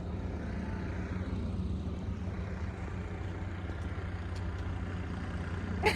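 A steady low engine hum with a constant drone, unchanging throughout.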